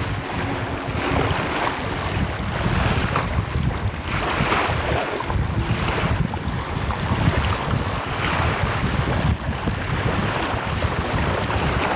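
Heavy wind buffeting the microphone, a loud rumble, over the wash of choppy lake water, with gusty surges of hiss every second or two.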